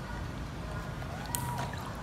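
Water sloshing and trickling in a plastic basin as a kitten is held and washed in it, with a couple of small splashes in the second half.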